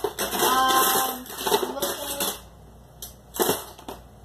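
Hard plastic Snap Circuits parts clicking and clattering as they are handled: a busy rattle in the first second, then a few separate sharp clicks.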